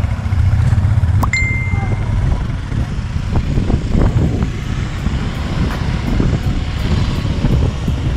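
Motorbike on the move: wind buffeting the rider-mounted microphone over the low, steady run of the engine. A sharp click and a short high beep come about a second and a half in.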